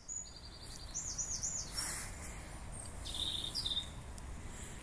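Songbirds singing in short bursts: quick high trills and looping whistled phrases, with pauses between them, over a steady low rumble.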